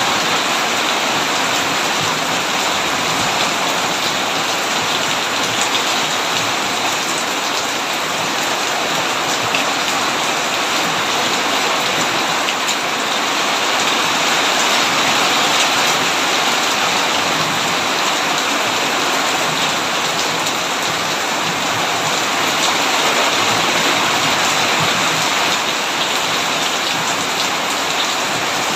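Heavy rain falling steadily on a tin roof, an even hiss with faint scattered drop ticks.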